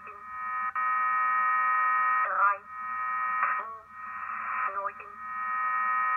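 Shortwave numbers-station signal (the German station G06) received through a WebSDR receiver: a steady, buzzy multi-tone sound held about two seconds at a time, broken a few times by short gaps with brief falling glides, over a faint low hum.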